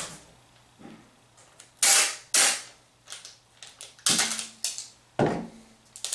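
Packing tape pulled off the roll in several short, sharp rips and pressed onto a cardboard box.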